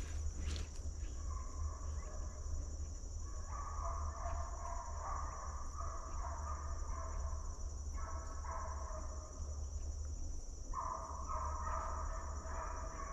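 Steady high-pitched drone of insects, with a fainter wavering animal sound coming and going in spells of a few seconds.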